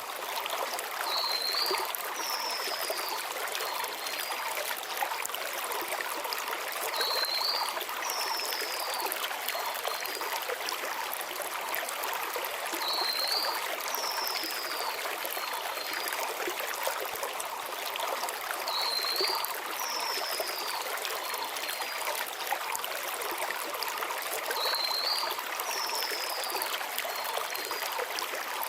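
Mountain stream flowing over stones in a steady rush and trickle. A small bird calls about every six seconds, each time a short high note followed by a falling whistle.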